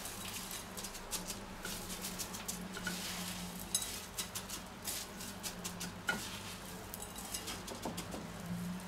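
Crushed cornflake breading crackling and rustling as gloved hands press and turn raw chicken pieces in it on a plate, in many small irregular crunches, over a steady low hum.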